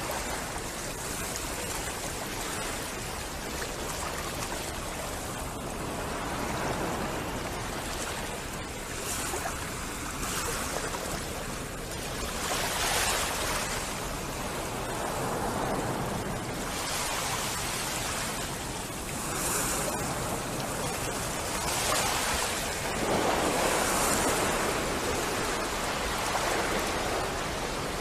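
Steady rushing noise of wind and water, swelling into louder whooshes several times.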